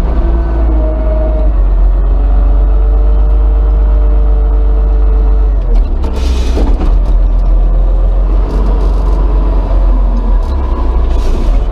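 Front loader's diesel engine running hard while the hydraulics raise the boom and bucket. A steady whine runs until about six seconds in and then stops. A brief hissing rush follows right after, and another comes near the end.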